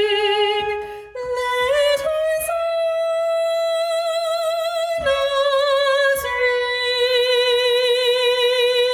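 A solo soprano voice singing the closing phrase of the carol, holding long notes with vibrato: it climbs to a higher sustained note, then settles onto a long final note.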